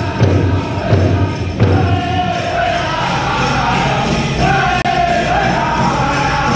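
Powwow drum group singing a chicken dance song, with a large hand drum beaten in even strokes. About two seconds in, the separate drum strokes give way to a steadier low sound while high, wavering voices carry the song.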